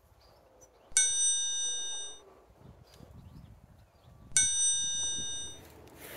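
Two identical bell-like metallic dings, about three and a half seconds apart, each ringing high and dying away over about a second.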